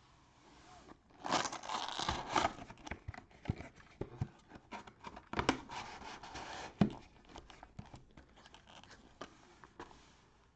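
Cellophane wrapping crinkling and tearing as a trading-card pack or box is opened, loudest about a second in, followed by scattered clicks and rustles of cards and packaging being handled.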